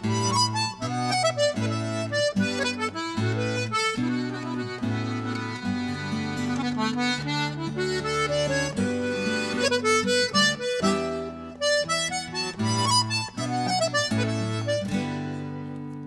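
Button accordion playing an Irish tune: a quick, ornamented melody over held bass and chord notes. Near the end a chord is held and fades away.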